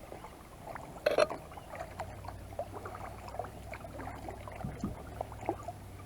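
Quiet sounds of a kayak being paddled: water trickling and dripping from the paddle blades in small scattered splashes, with one brief louder splash about a second in.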